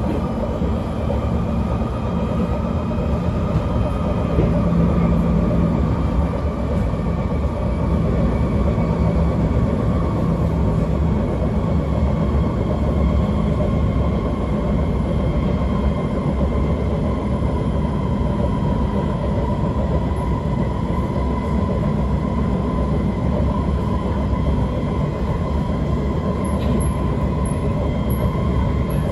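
Singapore MRT C151 metro train running along the track: a steady, loud rumble of wheels and running gear, with a faint whine that slowly falls in pitch.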